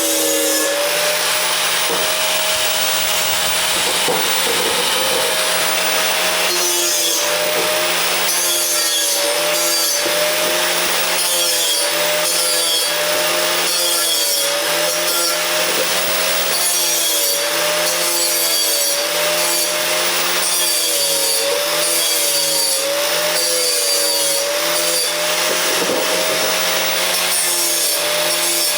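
Angle grinder with a 36-grit flap disc grinding steel, smoothing freshly cut slots. The motor whine dips and recovers again and again as the disc is pressed in and eased off.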